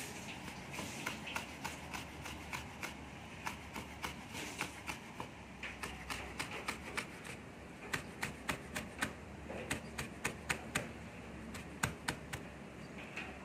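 Chef's knife knocking on a plastic cutting board as a red chilli is sliced into thin strips: a quick, uneven run of light knocks, coming faster in the second half.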